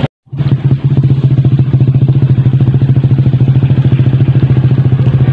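A small engine running loud and steady at a constant speed, with a fast, even pulse. The sound drops out for a split second right at the start.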